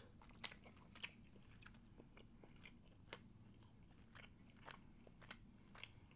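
Faint, close-up chewing of a mouthful of roast chicken: soft, irregularly spaced wet mouth clicks and smacks.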